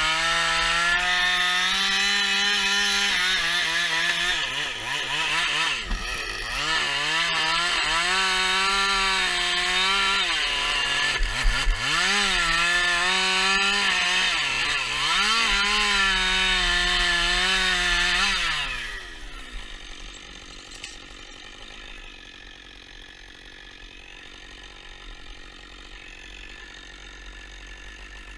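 Husqvarna 560XP two-stroke chainsaw running at high revs while cutting wood, its pitch dipping and recovering several times under load. Near the end its engine note falls away and the sound drops much quieter.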